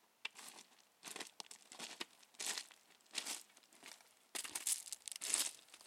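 Footsteps crunching on loose rocky gravel, one every half second or so, getting louder about four and a half seconds in as the walker comes closer.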